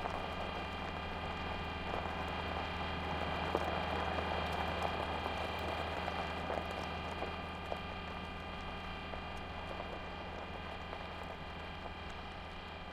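Sound effects for the animated Curiosity rover driving: a steady motor hum made of several unchanging tones, over a gravelly crunching with small scattered clicks from the wheels rolling on rocky ground.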